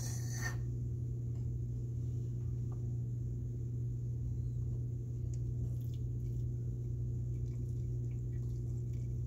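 Steady low hum at an even level, with a few faint light taps and clicks.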